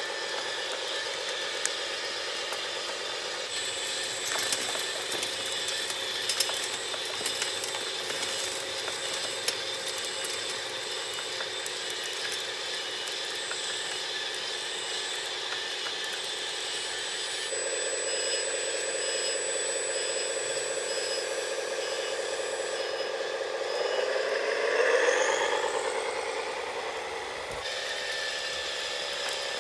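Steady whine of the electric drive motors and hydraulic pump of radio-controlled model construction machines, a CAT D25 model dump truck and a model soil screener with conveyor, with scattered clicks and rattles of soil and stones. Near the end the whine slides up and back down, the loudest part.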